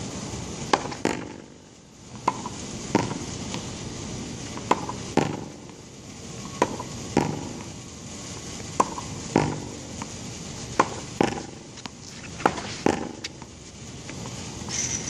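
Tennis ball rallied against a hitting wall: sharp pops of the ball coming off the racket strings and striking the wall and court. The pops come mostly in pairs about every second and a half, over a steady background rumble.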